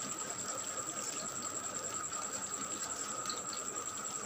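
Okra pieces frying in oil in a steel kadai, sizzling steadily.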